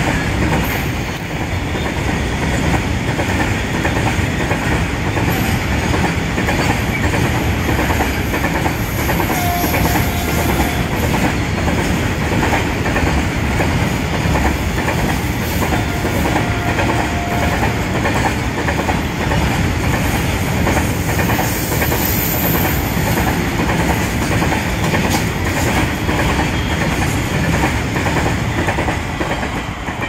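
Freight train of BTPN oil tank wagons running past at speed, the wheels clattering steadily over the rail joints; the sound starts to fade near the end as the brake van goes by.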